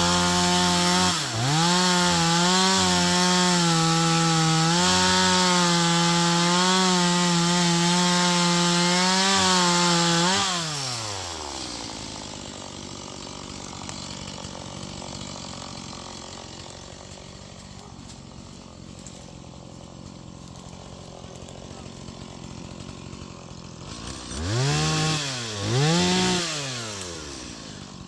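Stihl two-stroke chainsaw held at full throttle cutting through a log, dipping briefly about a second in. About ten seconds in it drops to a quiet idle, and near the end it is blipped up twice and falls back to idle.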